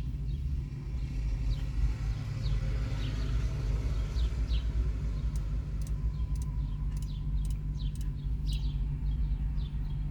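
Steady low rumble like an idling engine or machine running, with short high bird chirps over it, several a second at times, and a few sharp clicks in the second half.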